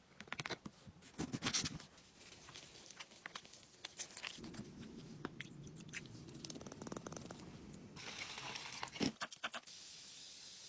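Irregular clicks and taps with stretches of rough scraping or rubbing, the sound of hand work on an object; a burst of sharper clicks comes near the end.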